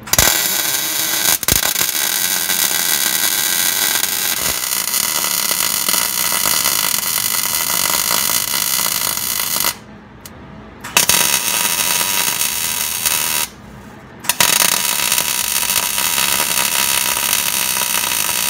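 Millermatic 140 MIG welder arc crackling and hissing steadily as plug welds are run on thin floor-pan sheet over the frame rails, turned up hot to the top of its 16-gauge setting. It welds in three runs, about ten seconds, then two to three seconds, then four seconds, with two short stops between them.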